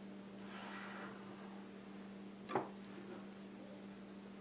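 A kitchen knife slicing through Dyneema rope strands on a cutting board, a soft brief rasp about half a second in, then a single sharp click about two and a half seconds in as the knife is set down, over a faint steady hum.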